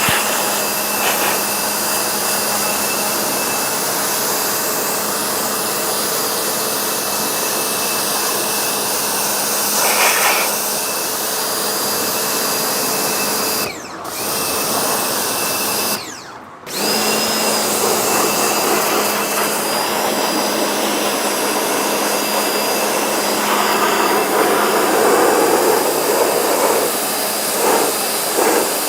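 Electric vacuum cleaner running steadily with a high whine. Its motor dips out briefly twice, a little past halfway, and comes back each time.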